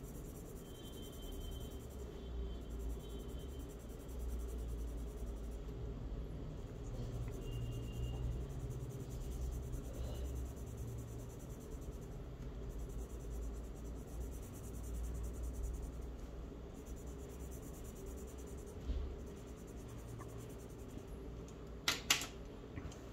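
Charcoal rubbing and scratching on paper as a drawn letter shape is filled in with shading, faint over a low steady hum. A couple of sharp ticks near the end.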